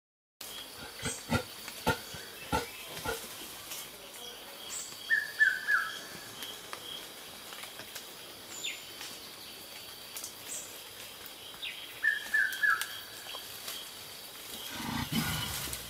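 Forest ambience: insects chirring in steady pulses, a bird giving a short falling call twice, a few sharp clicks in the first few seconds, and a low rumble near the end.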